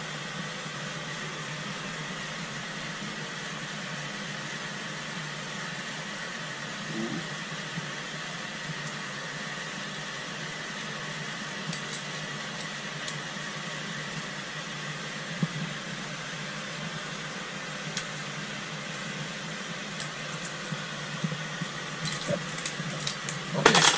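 Steady machine hum and hiss with a faint high whine in a boat's cabin, and now and then a faint small metallic click from split ring pliers working a split ring onto a jig's ring.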